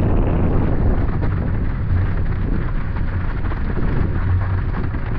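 Strong wind buffeting the microphone: a loud, steady low rumble with a rushing hiss above it.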